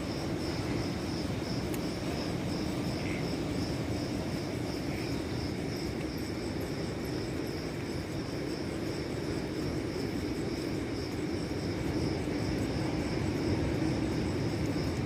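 Crickets chirping in a steady, evenly pulsing high trill, over the low, continuous rumble of distant surf.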